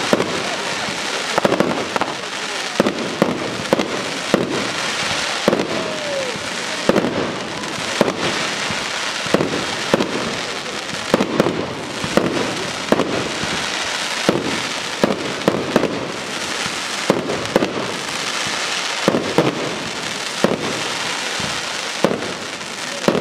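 Aerial fireworks display: frequent sharp shell bursts, roughly one or two a second, over continuous crackling and hiss from the burning stars.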